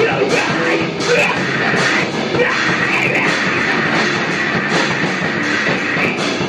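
Live rock jam on an amplified electric guitar and a Yamaha drum kit, loud and dense, with drum and cymbal hits cutting through throughout.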